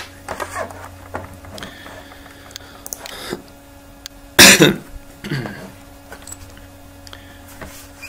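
A man clears his throat with one short, harsh cough-like sound about four and a half seconds in, followed by a brief voiced sound falling in pitch. A faint steady hum runs underneath.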